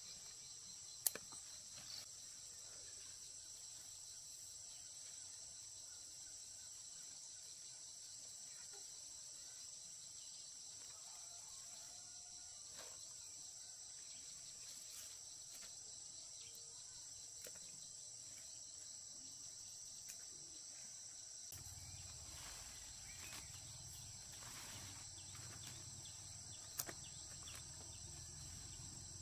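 Faint, steady high-pitched chirring of insects. A couple of sharp clicks sound near the start and near the end, and a low rumble comes in about two-thirds of the way through.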